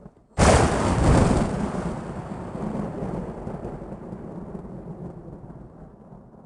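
Thunder sound effect: a sudden sharp thunderclap about half a second in, followed by rumbling that slowly dies away over several seconds. A second clap begins at the very end.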